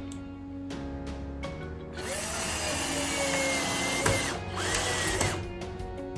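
Power drill running in two bursts, a longer one from about two seconds in and a short one near the end, its whine shifting in pitch as it runs, over background music.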